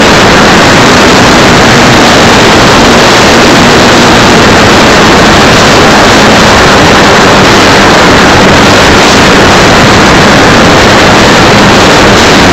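Loud, steady engine and wind noise with no change in pitch or level, overloading the recording.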